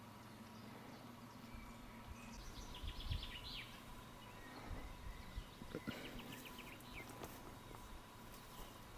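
Small songbirds chirping in two quick trills of short notes, over a faint steady hiss, with a few low thuds in the middle.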